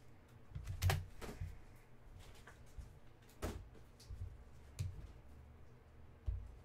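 Trading cards being handled and set down on a table: several separate taps and soft knocks, the loudest about a second in.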